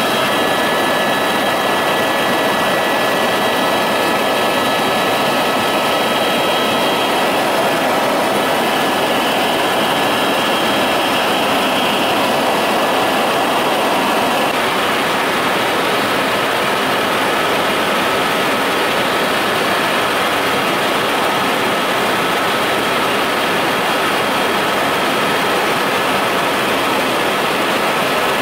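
Loud, steady engine drone with several steady whining tones over it, without a break. The higher tones change slightly about halfway through.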